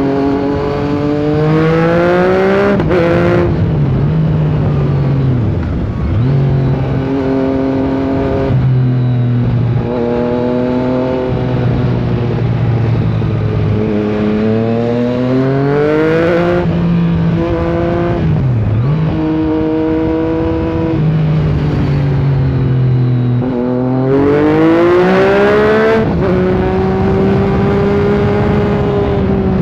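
Yamaha MT-09's inline three-cylinder engine under way, pulling up through the revs and dropping in pitch at each gear change, over and over as the bike accelerates.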